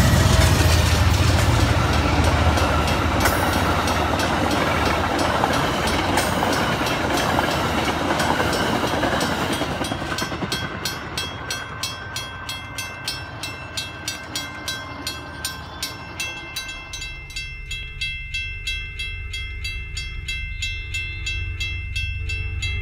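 Amtrak Northeast Regional passenger train speeding past a grade crossing, a loud rush of rail noise that fades away over about ten seconds. Then the crossing's warning bell rings on its own at about two strikes a second.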